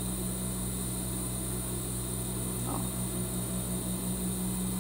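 Steady low hum of an industrial overlock (serger) motor running idle, the needles not yet sewing.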